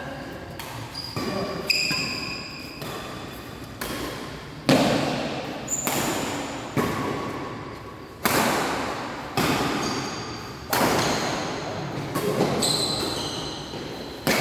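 Badminton rally: rackets striking a shuttlecock with sharp hits about once a second, echoing in a large hall, with short high squeaks of shoes on the court floor between hits.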